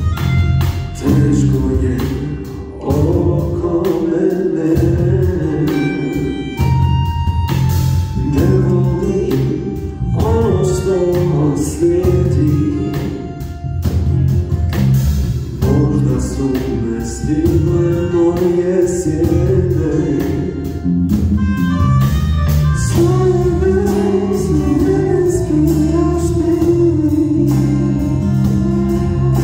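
Live acoustic band playing a song: a male lead vocal over strummed acoustic guitars, electric guitar and a cajón with cymbal keeping a steady beat.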